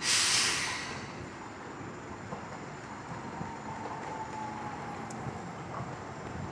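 Toden Arakawa Line tram running slowly along the track, a steady low rumble with a faint high whine that dips slightly in pitch midway. A loud hiss lasts under a second at the very start.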